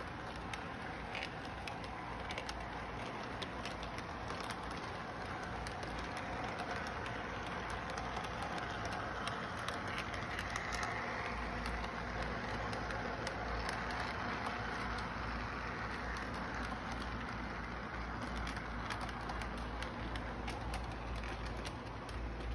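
Model train running on three-rail O-gauge track: the locomotive's electric motor whirs and the wheels roll along the rails with scattered clicks. It grows a little louder in the middle as the train passes close by, over a steady low hum.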